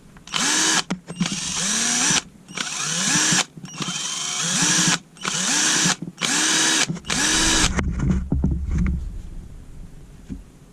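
Cheap 12 V cordless drill run in short bursts, about seven trigger pulls. Each spins the motor up in a rising whine and then stops. The bursts end about three-quarters of the way through.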